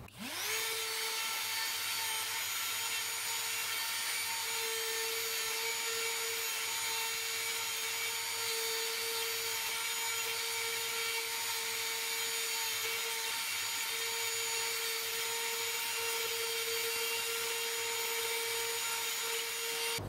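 Small DC motor of a homemade drill press winding up and then running at a steady whine while its bit cuts into the wooden butt end of a table tennis racket handle, making a recess to seat the end label.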